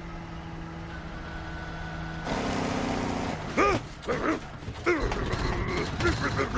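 Big-rig truck engine droning steadily at highway speed. About two seconds in a louder rushing layer joins it, and several short rising-and-falling tones sound over it.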